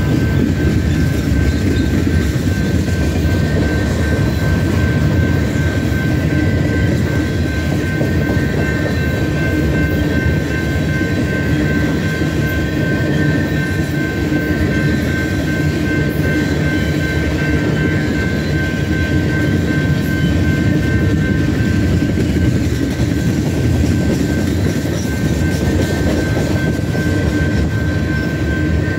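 Empty steel coal hopper cars of a freight train rolling past close by: a loud, steady rumble of wheels on rail with a thin, steady high tone running through it.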